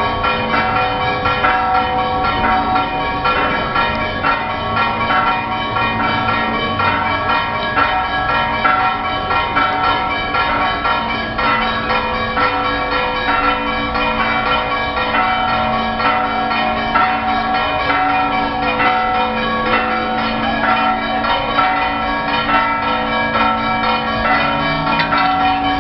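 Several church bells ringing together in a fast, continuous peal, with many strikes a second and their tones overlapping and ringing on.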